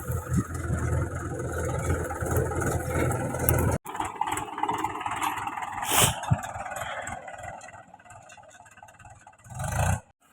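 Heavy diesel machinery engine running, cut off abruptly about four seconds in. A quieter engine sound follows and fades away after about seven seconds.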